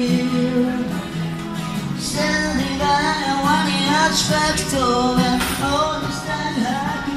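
A song: instrumental backing with a singing voice that comes in about two seconds in, the melody wavering with vibrato.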